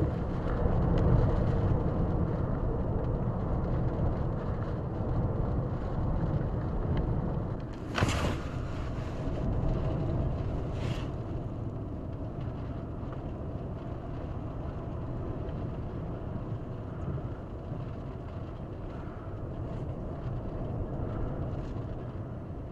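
Hurricane wind and heavy rain: a steady low rumble of wind with rain hiss, and two brief hissing surges about eight and eleven seconds in.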